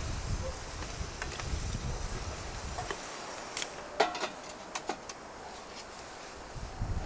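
Metal clinks as a chimney pipe is fitted onto the top of a wood-fired samovar: one sharp clink about four seconds in, then two lighter ones just before five seconds. A low rumble runs through the first three seconds.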